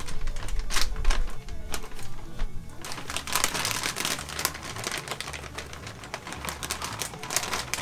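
Paper-and-plastic bag of smoking wood chips crinkling as it is handled and opened, then a few seconds of chips rattling and hissing out of the bag, over background music.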